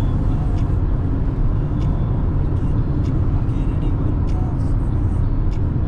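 Steady road and engine rumble of a car driving along at speed, heard from inside the cabin.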